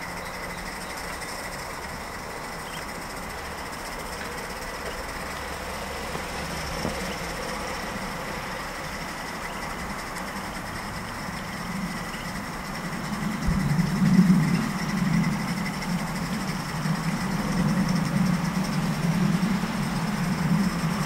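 Mamod live-steam Double Fairlie model locomotive running in steam with a steady hiss. A louder low sound builds about two-thirds of the way through and carries on to the end.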